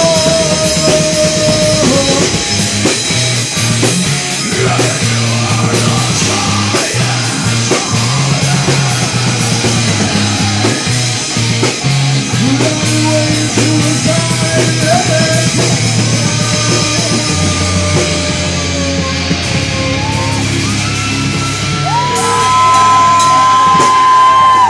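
Live hard rock band playing loud: distorted electric guitars, bass and a drum kit, with a male singer yelling into a handheld microphone. A long held high note comes in near the end, and the music gets louder there.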